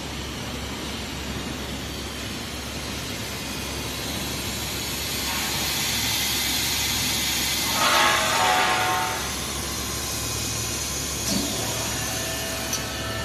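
PVC profile extrusion line running: a steady machine noise with a hiss, which swells to a louder hiss with a few steady tones about eight seconds in.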